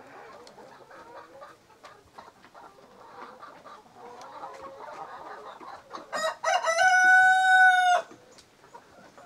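A flock of hens clucking quietly as they feed. About six seconds in, a rooster crows once: a few short notes, then a long held call of about a second and a half that cuts off sharply, the loudest sound here.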